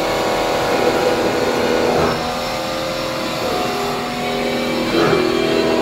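Weida VM 850 CNC vertical machining center running, a steady motor whine of several tones that shifts in pitch about two seconds in and again near the end, where it gets a little louder.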